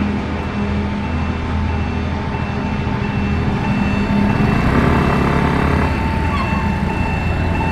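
A large engine running steadily, its low hum shifting in pitch around the middle, with steady high tones sounding above it.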